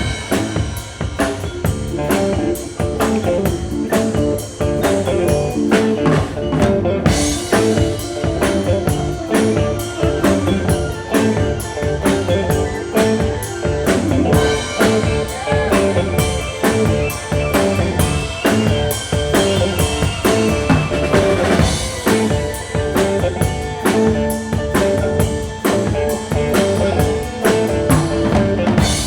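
Rock music with a full drum kit keeping a steady beat under sustained instrument notes.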